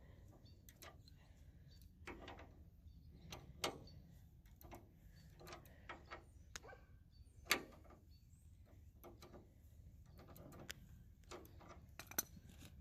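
Scattered faint clicks and knocks of hand tools and metal parts being handled during a roadside tire change, a few of them sharper. Under them is a low steady rumble.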